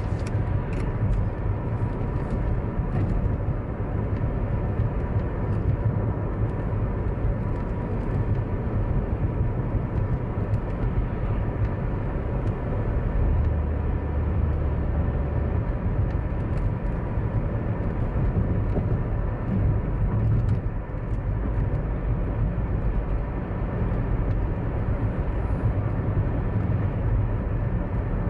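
Steady road and engine noise inside a moving car cruising down a city street, with a deep tyre rumble underneath.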